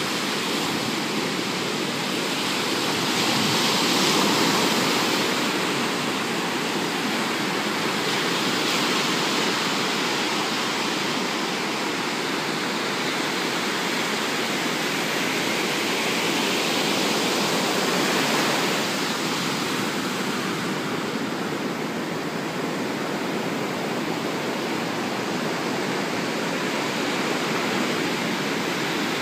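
Pacific Ocean surf: a continuous wash of breaking waves, swelling louder about four seconds in, again around nine seconds, and once more around seventeen to eighteen seconds.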